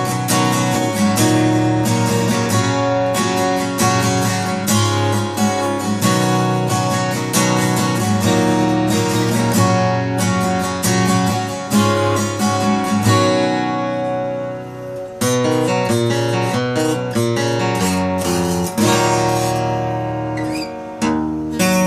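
Takamine D50 acoustic guitar strummed in a steady rhythm. Near the middle a chord is left ringing and fades, then the playing turns to separate picked notes.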